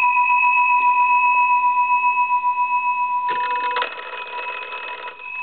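The wall telephone's twin brass gongs ringing through a ring cycle, the clapper striking them in a rapid rattle for about four seconds before the ringing fades. A steady high tone sounds underneath.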